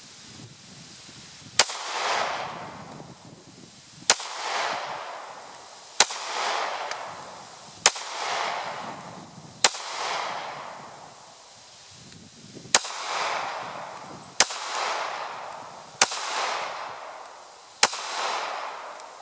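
Smith & Wesson M&P9c compact 9mm pistol fired nine times in slow, deliberate single shots about two seconds apart, with a longer pause after the fifth. Each shot is followed by a ringing echo that dies away over about a second.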